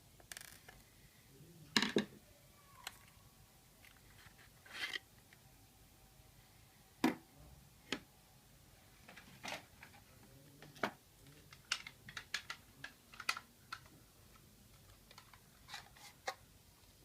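Irregular small clicks, taps and short scrapes of hard plastic and metal laptop parts being handled during a hard-drive-to-SSD swap, scattered unevenly. The sharpest knocks come about two seconds in and about seven seconds in, with a quick run of clicks around twelve to thirteen seconds.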